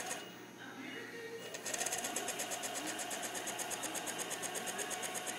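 Sharp TMV mill's ProtoTrak MX2 axis drive moving the table along its other axis: a fast, even mechanical pulsing. It stops just after the start and resumes about a second and a half in.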